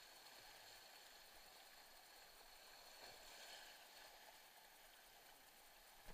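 Faint, steady rush of whitewater around a kayak running a flooded creek's rapids, swelling a little about halfway through. A single short knock comes at the very end.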